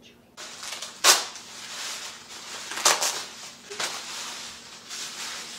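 Plastic bubble wrap being handled and unwrapped: a continuous crinkling rustle with a few sharp, louder crackles, the loudest about a second in and near three seconds.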